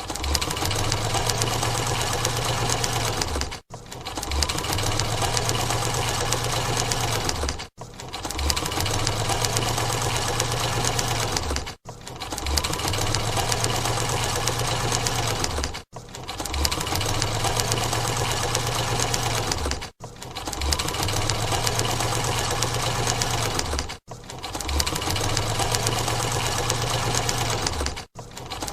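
Sewing machine running at speed, a rapid steady stitching clatter over a low motor hum, in runs of about four seconds, each broken by a brief stop before it starts again.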